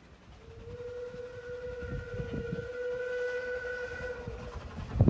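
Steam locomotive whistle on the Isle of Man Railway sounding one long steady blast of about four seconds as the train approaches, over a low rumble that slowly grows louder.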